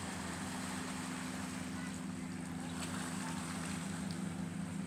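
A boat engine running steadily, a constant low hum that does not rise or fall.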